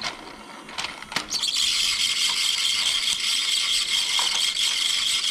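Battery-powered TrackMaster toy engine's electric motor and plastic gears whirring steadily, starting after a couple of clicks about a second in.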